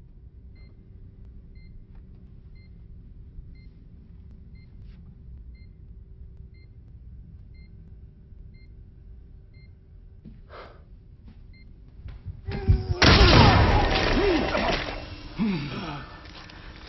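Film soundtrack: a low, tense rumble with faint regular beeps about once a second, then, about twelve seconds in, a sudden loud burst of cries and thuds as a struggle breaks out.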